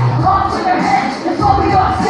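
Live horrorcore rap concert music over a PA: a deep, steady bass note cuts off about a quarter second in, leaving a raised voice over the loud sound of the room.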